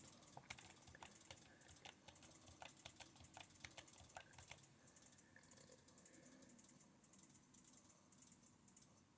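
Faint typing on a computer keyboard: a scattered run of light key clicks that stops about halfway through.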